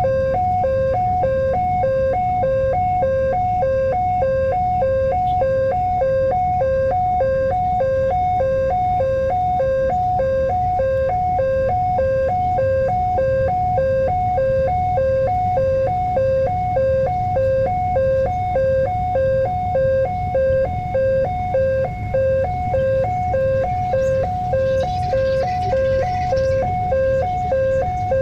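Railway level-crossing warning alarm sounding a rapid, even two-tone signal that alternates between a lower and a higher note, the warning that a train is approaching. A low rumble runs underneath.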